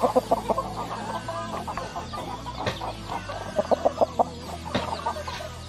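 Chickens clucking in short, repeated calls, with a quick run of louder clucks around the middle and a couple of sharp clicks, one near the middle and one near the end.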